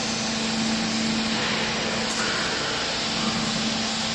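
Hydraulic clothes baler's power unit running, a steady machine noise with a constant low hum from the motor and pump.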